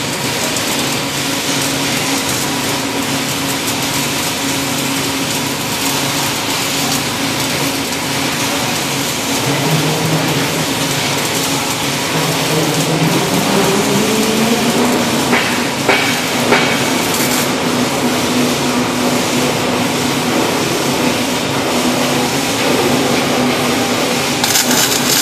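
Robotic MIG welding arc from a Motoman EA1900N arc-welding robot running continuously: a dense, steady noise over a low machine hum. A rising whine comes in about ten seconds in, with a few sharp clicks a little later.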